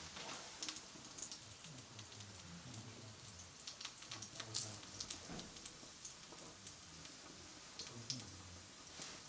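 Faint, irregular crackling and popping of a small Agnihotra fire of dried cow dung and ghee burning in pyramid-shaped pots.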